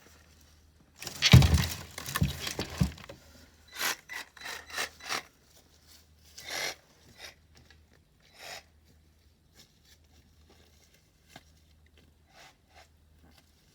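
Cut branches and wood crashing, scraping and rustling as they are moved, loudest in a heavy burst with low thuds about a second in, then a run of shorter scrapes that thin out to scattered faint ticks. The chainsaw is not running.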